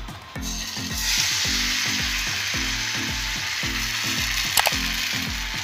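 Dosa batter sizzling as it is ladled onto a hot oiled pan: the hiss starts about half a second in and is full within a second, then holds steady. There is a sharp click near the end.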